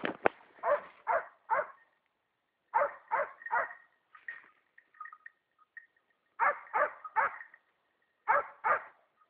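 Dog barking repeatedly in quick runs of two or three barks, with pauses of a second or two between the runs.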